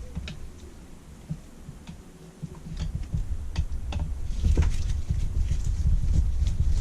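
Scattered light clicks and taps of tools and small metal parts as a Holley four-barrel carburettor is being dismantled, with low rumbling handling noise growing louder from about halfway through.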